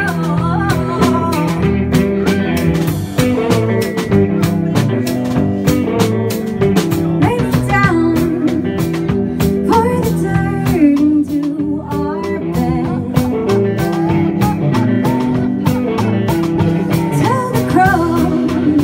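Live band playing through PA speakers: guitars and drums keep a steady beat. A singer's voice comes in at the start and again near the end.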